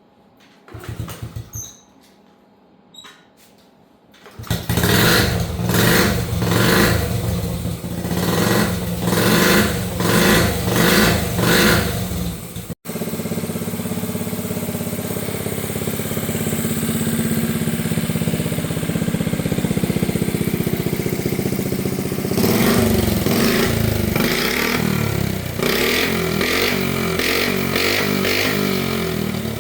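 A 1970 Honda Z50's small single-cylinder four-stroke engine catches about four seconds in after a few faint clicks, then revs in repeated blips. After a brief break it settles into a steady idle, with more blips of the throttle later on. The engine is freshly tuned after a carburetor float reset and valve lash adjustment, and runs and idles smoothly.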